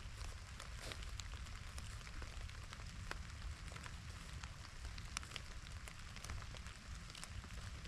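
Low rumble of wind on the microphone under an even hiss, with many scattered light ticks and crackles.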